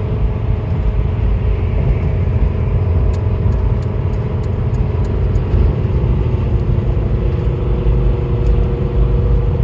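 Steady road and engine rumble of a car driving at highway speed, heard inside the cabin.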